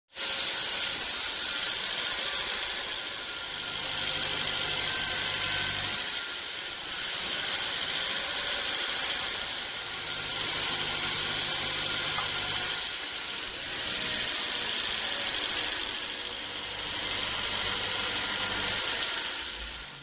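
Band sawmill blade cutting through a large log: a loud steady hiss that swells and eases every three to four seconds, with a low hum coming and going underneath. It drops away near the end.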